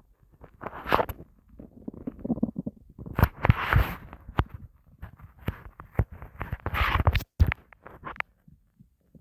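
Empty stomach growling and gurgling: an irregular run of bubbly rumbles and pops that swells loud about a second in, again around three and a half seconds, and near seven seconds, then dies away near the end. Hunger rumbling of a stomach that has gone a long time without food.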